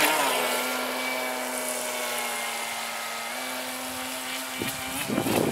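Brushless electric motor of an RC speedboat (an NQD 757 Mosquito Craft conversion) running at a steady speed: an even whine with a humming note, fading slowly. Near the end an uneven rushing noise comes in.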